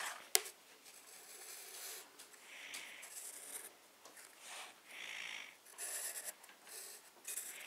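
Pencil lead scratching on paper in short, irregular strokes as it traces around the edges of a plastic stencil, faint, with one sharp tick just after the start.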